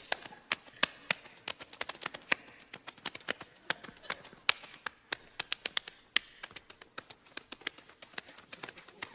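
A rapid, irregular run of sharp clicks, several a second, some louder than others.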